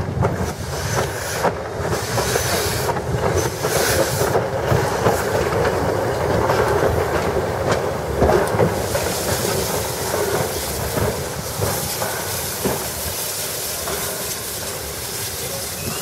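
Soviet Su-class steam locomotive (Su251-86) rolling slowly past, its wheels clicking over the rail joints with a steady hiss of steam. The sound is loudest as it passes near the middle.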